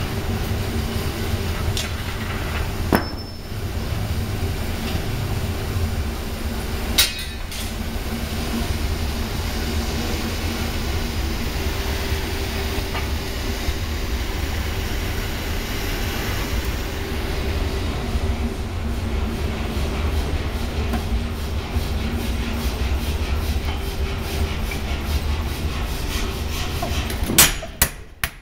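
5 cwt Massey power hammer and gas forge running with a steady low drone, with two sharp metallic clinks about 3 and 7 seconds in. Near the end the hammer lands a few heavy blows on the glowing steel billet.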